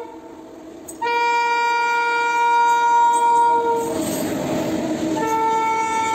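WAG-9 electric locomotive's horn sounding a long steady blast about a second in. It is followed by the rumble and rattle of the locomotive and loaded freight wagons passing close by, and the horn sounds again a little after five seconds over the passing wagons.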